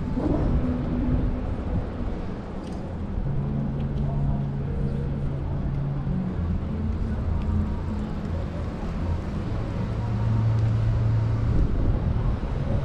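Road traffic: a steady low rumble with the hum of vehicle engines, its pitch shifting every few seconds as vehicles idle and move.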